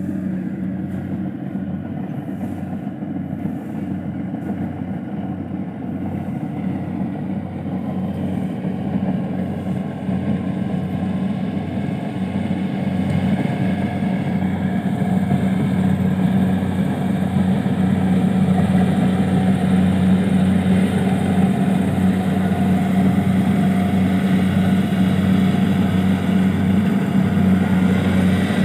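An engine running steadily with an even hum, slowly getting somewhat louder over the stretch.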